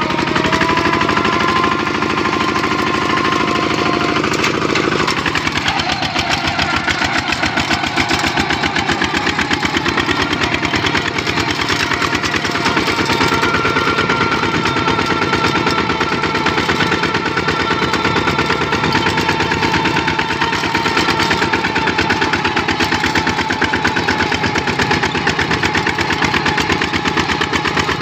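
Single-cylinder diesel engine of a Kubota RT-series walking tractor running under load while pulling a trailer, with a rapid chugging beat. Its pitch drops once about five seconds in, then holds steady.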